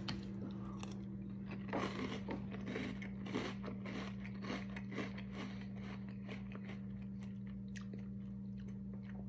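Faint crunching of a mouthful of KitKat cereal in milk being chewed, in irregular soft crackles that thin out over the last couple of seconds. A steady low hum runs underneath.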